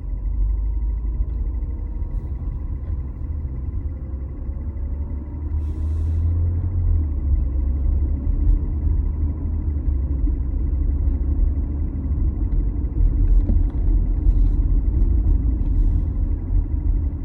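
2018 BMW X3 M40i driving: a steady low rumble with a faint whine beneath it that slowly rises and falls in pitch. This whine is the noise the owner is documenting. A brief hiss comes about six seconds in.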